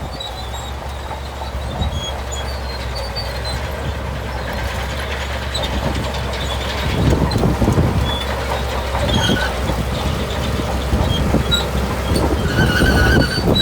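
Shantui crawler bulldozer's diesel engine running under load, its steel tracks clanking with short high squeaks; it gets louder about seven seconds in.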